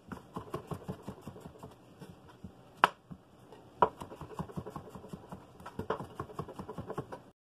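Kitchen knife slicing portabella mushrooms on a cutting board: a quick, steady run of knife strokes tapping the board, about four a second, with two louder, sharper knocks around the middle.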